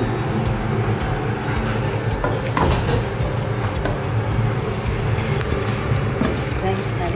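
A steady low rumble, with a wooden spoon stirring and scraping chopped bottle gourd and chicken in a pot, and a glass lid set on the pot near the end.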